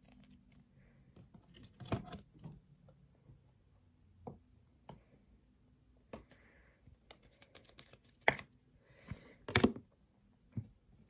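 A trading card being slid into a clear plastic sleeve and handled: soft crinkling of the plastic with scattered light taps and clicks. The sharpest clicks come about two seconds in and in a cluster near the end.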